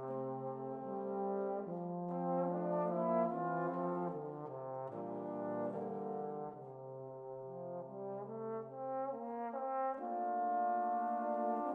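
Trombone ensemble playing slow, sustained chords that shift note by note over a low bass line; about ten seconds in, a fuller, louder chord comes in.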